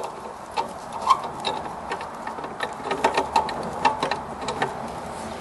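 Light, irregular metal clicks and clinks as a slotted oxygen-sensor socket is worked down over the wire and onto an O2 sensor threaded into an exhaust manifold.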